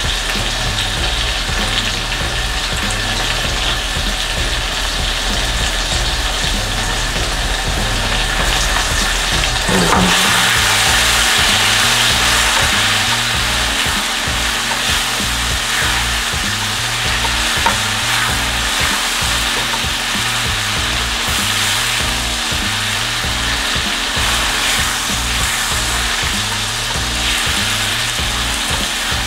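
Sugar caramel and oil sizzling in a frying pan as it is stirred. About ten seconds in the sizzle grows louder and brighter, as the sautéed chicken and vegetables go into the hot caramel.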